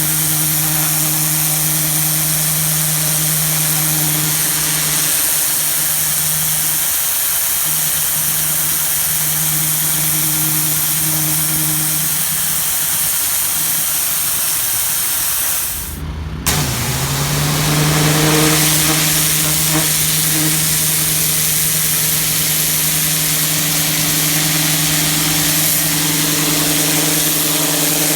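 Gas-engine pressure washer running steadily, with the hiss of its water jet on concrete. About halfway through, the hiss cuts out for a moment and the engine note dips, then climbs back to its steady pitch.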